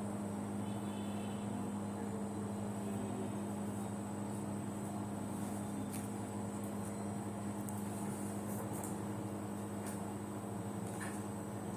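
Samsung front-load washing machine running, its motor giving a steady, unchanging hum.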